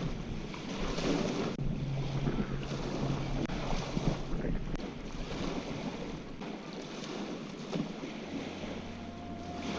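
Gusting wind buffeting the microphone over the wash of small waves on the shore.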